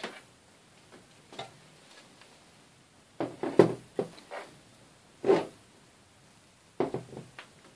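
A valve amplifier's metal chassis being handled and turned over on a wooden workbench: a series of knocks, bumps and scrapes of metal against wood, with a cluster about three seconds in and more near the end.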